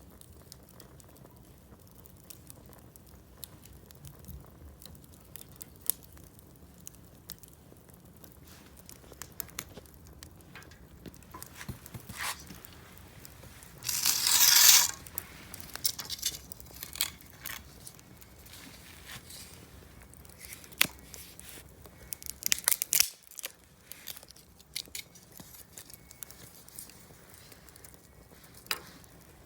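Wood campfire crackling, with scattered sharp pops and snaps and one louder noisy burst lasting about a second near the middle.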